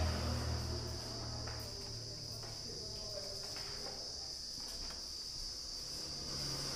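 A steady high-pitched whine or trill holds at one pitch throughout, over a faint low hum that fades about a second in.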